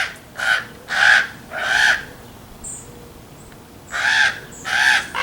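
Young common ravens giving their harsh, drawn-out 'wha-a-at' begging calls. There are four calls in quick succession, a pause of about two seconds, then three more near the end.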